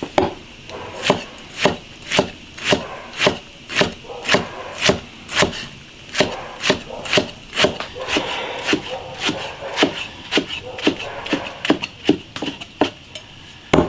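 Steel cleaver chopping blanched green vegetables on a wooden tree-trunk chopping block: a steady run of sharp chops about two a second, coming a little faster in the last few seconds.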